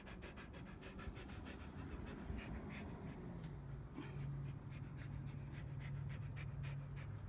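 Samoyed dog panting, rapid and even at first, then looser and more irregular. A steady low hum comes in about three and a half seconds in.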